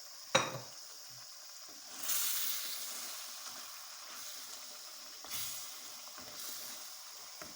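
Goat meat stew sizzling and simmering in the pot, the hiss swelling louder a couple of times. A single sharp knock about half a second in.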